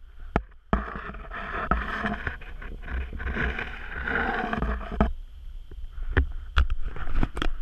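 Noise aboard a fishing boat at sea: an even rushing hiss of water and wind starts about a second in and stops suddenly about five seconds in, and several sharp knocks come near the end.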